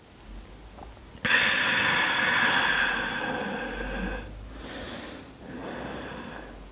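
A woman's long, audible exhale starts suddenly about a second in and lasts about three seconds, followed by two softer breaths.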